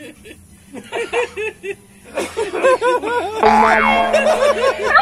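Domestic turkey gobbling in runs of rapid warbling notes, with a tone sliding up and back down about three and a half seconds in.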